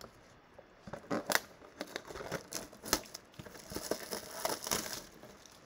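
A 2020 Bowman Mega box of trading cards being opened by hand: a few sharp clicks and taps of cardboard and cards, then a longer rasping tearing and crinkling of the packaging about three and a half seconds in.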